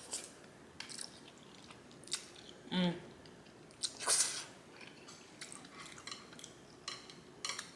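Close-miked chewing of noodles: wet mouth clicks and smacks at irregular intervals, with a brief murmur from the voice about three seconds in and a short hissing mouth sound about a second later.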